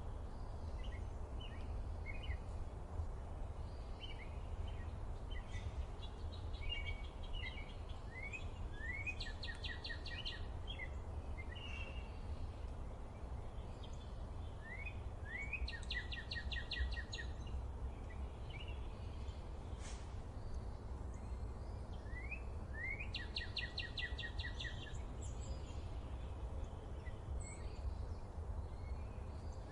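A songbird repeats one song about every seven seconds. Each song is a few quick rising notes followed by a fast, even trill. Scattered short chirps come in between, over a steady low rumble.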